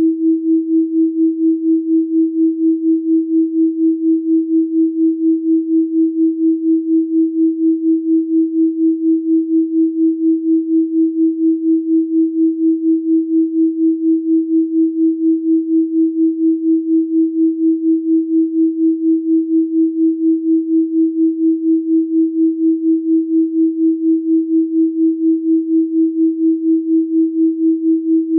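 A steady 324 Hz pure sine tone, swelling and fading evenly about three times a second.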